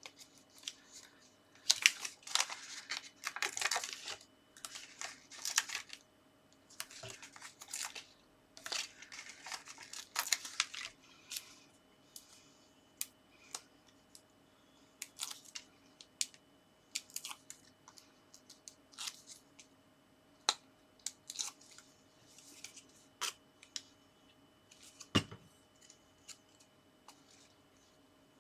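Paper and card being handled: rustling and crinkling for the first ten seconds or so, then scattered light taps and clicks, with one sharper knock near the end.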